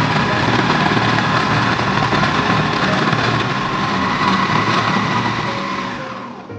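Panasonic MK-F510 food processor's motor running at speed: a loud, steady whir with a high whine, dying away near the end as it is switched off.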